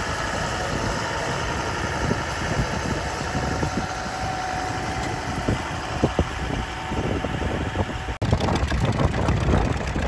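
A modern John Deere utility tractor's diesel engine running steadily under load while pulling a reversible plough. About eight seconds in, the sound cuts abruptly to a louder, more uneven engine beat from a vintage two-cylinder John Deere tractor.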